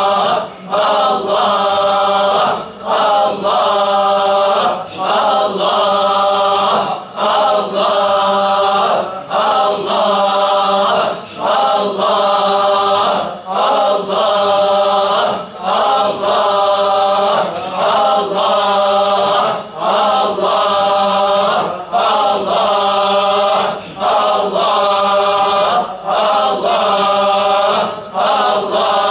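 Dhikr of the single divine name 'Allah': a group of men chanting it in unison, over and over, about once every two seconds, with a short dip between repetitions.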